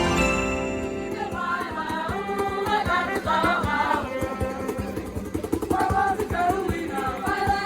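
Music with voices singing together, choir-like, with wavering sustained notes. It follows a bell-like chiming passage that dies away at the start.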